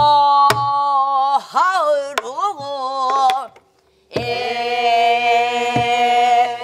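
A woman singing pansori in slow jinyangjo rhythm. She holds a long note, breaks into wavering, bending ornaments, stops for about half a second, then sets in on a new long held note. A few sharp knocks from a buk barrel drum fall between the phrases.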